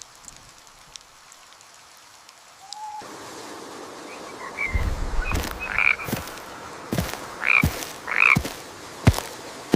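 Frogs croaking in a series of short calls over a steady background hiss, starting about four and a half seconds in after a near-quiet start, with a few sharp knocks in the last three seconds.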